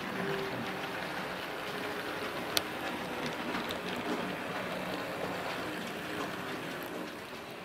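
Sn2½ scale model diesel locomotive running along the track, with a steady rattle and hum from its wheels and small electric motor. There is one sharp click about two and a half seconds in.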